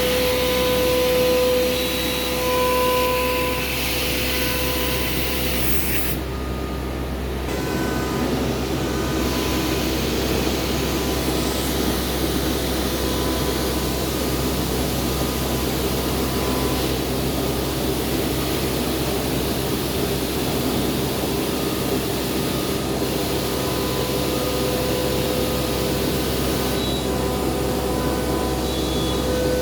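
CNC router milling MDF cabinet fronts: steady machine noise with a steady whine that fades after the first few seconds and comes back near the end. The high hiss drops out briefly about six seconds in.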